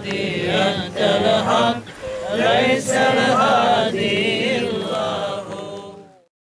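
Voices chanting a slow, melismatic Islamic religious recitation, with long, wavering held notes. It fades out about six seconds in.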